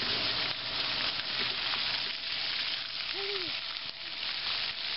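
Splash-pad fountain jets spraying water onto the pavement: a steady hiss, with a brief voice about three seconds in.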